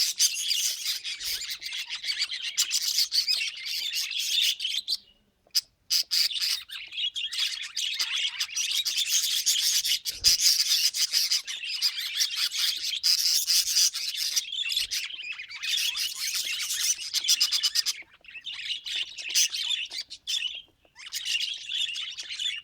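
Budgerigars chattering and warbling in a fast, continuous stream of chirps and squawks, with a few short pauses.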